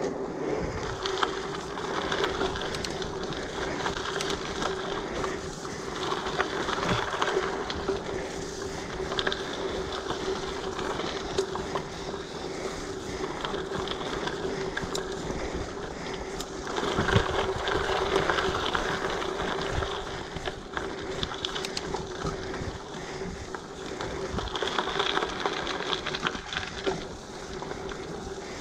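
Giant Fathom mountain bike ridden along a dirt forest trail: tyres rolling with a steady hum and the chain and bike rattling and clicking over the bumps, louder for a couple of seconds about seventeen seconds in.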